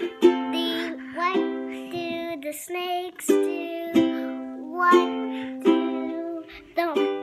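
Ukulele strumming chords in a steady pattern, a fresh strum roughly every second.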